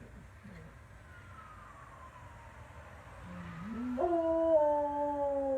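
Dog howling: a low note rises about three seconds in and swells into one long, loud howl that steps slightly down in pitch.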